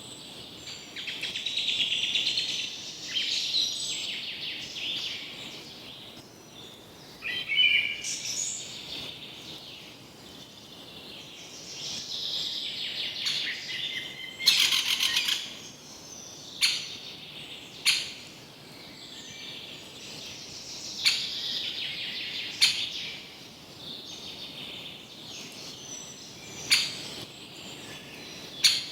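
Songbirds chirping and trilling, with a number of short, sharp high calls every few seconds.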